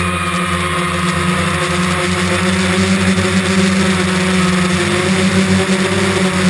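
DJI Phantom quadcopter's motors and propellers humming steadily, with a constant hiss of strong wind over it.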